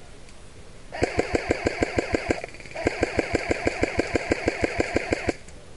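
Airsoft electric rifle firing on full auto in two bursts, about ten shots a second over a steady gearbox whine. The first burst lasts about a second and a half, and the second, after a short break, about two and a half seconds.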